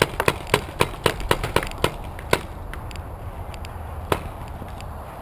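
Paintball markers firing: a rapid string of about a dozen sharp pops over the first two and a half seconds, then a single shot about four seconds in.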